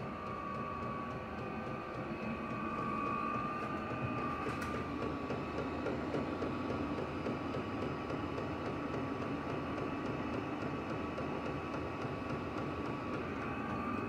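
Chinese diesel air heater running on its number 6 setting: a steady whir from its blower with a thin, even whine over it.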